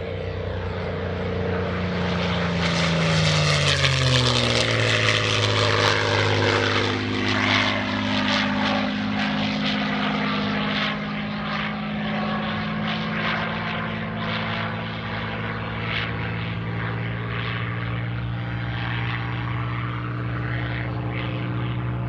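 P-51D Mustang's Packard Merlin V-12 engine running as the fighter passes overhead. The engine pitch drops sharply a few seconds in and is loudest just after, then settles into a steady drone as it flies on.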